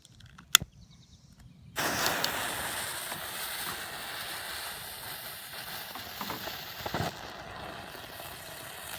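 A sharp click, then about two seconds in a novelty 'pooping dog' snake firework catches and fizzes with a steady hiss and a couple of small crackles as it burns.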